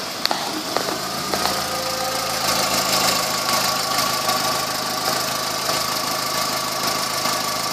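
A 2004 Volkswagen Jetta's 2.0-litre four-cylinder engine idling steadily. There are a few light clicks in the first second or so, and a thin steady whine comes in about two and a half seconds in.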